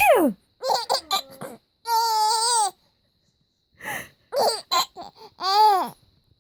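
A mother's sneeze ("achoo") right at the start, then a baby laughing: short bursts of giggles, a long high-pitched laugh, and, after a pause of about a second, more bursts of laughter.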